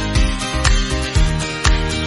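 Music with a steady beat, about two beats a second.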